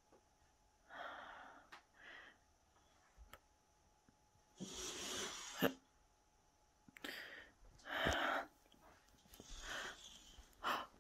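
A person's breathing heard close to the phone, in several short breathy bursts, with one longer exhalation of about a second in the middle.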